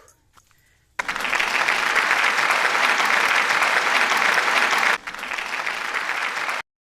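Crowd applause, starting suddenly about a second in, easing slightly near five seconds, then cut off abruptly: an applause sound effect edited into the hiking footage.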